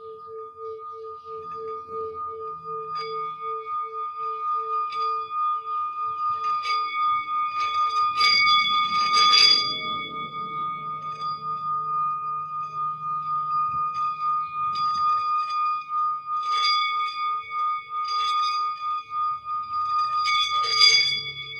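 Singing bowls ringing: a lower tone with a slow pulsing wobble and a higher steady tone hold throughout, while about six struck notes add bright ringing overtones, the loudest about nine seconds in and near the end.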